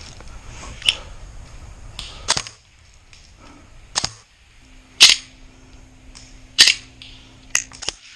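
Airsoft guns firing single shots: about seven sharp cracks at uneven intervals, the loudest two about five and six and a half seconds in.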